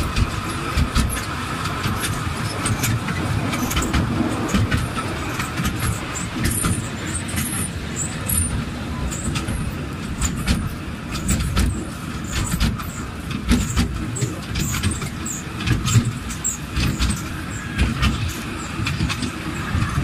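Small open tourist train running, its carriage rattling with many short knocks and squeaks over a steady low rumble.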